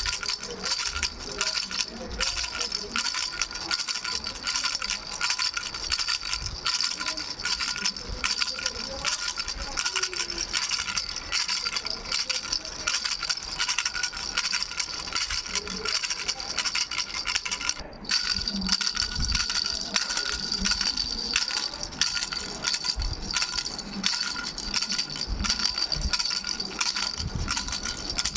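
Three-bell baby rattle shaken continuously: a dense jingling of many small strikes over steady ringing bell tones, with a brief break about 18 seconds in.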